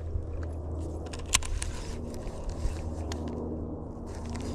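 Baitcasting reel being handled and reeled in after a cast: small clicks and ticks, with one sharp click about a second and a half in, over a steady low rumble.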